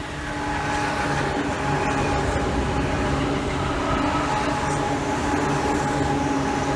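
Tobu 9000 series electric train (set 9105F) running past, growing louder over the first second into a steady rumble with a constant whine from its running gear.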